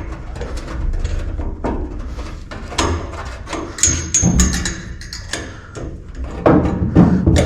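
Irregular knocks and clatter of hand work on a fire extinguisher mount and its hose clamps, loudest about three seconds in, at four seconds, and again near the end, with a brief high squeak about four seconds in.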